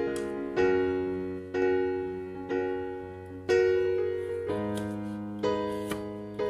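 Background piano music: sustained chords struck about once a second, each fading before the next.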